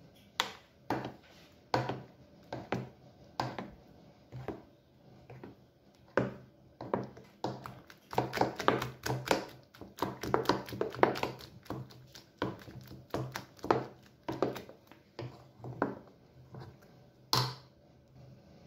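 A metal spoon and a wooden spoon stirring thick blended black-eyed bean batter in a ceramic bowl, knocking and scraping against the side of the bowl in irregular taps that come fastest in the middle. There is one sharper clack near the end.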